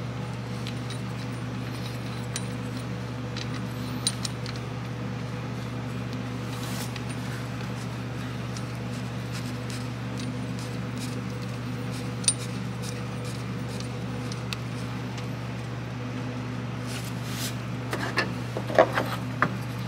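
Steady low hum in the background, with a few faint metallic clicks and clinks from a bolt, washer and tools being handled by hand. The clinks come more often near the end.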